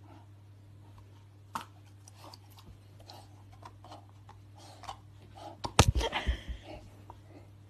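A bulldog mouthing and chewing on a ball, with soft scattered wet clicks and a brief burst of louder knocks and thumps about six seconds in.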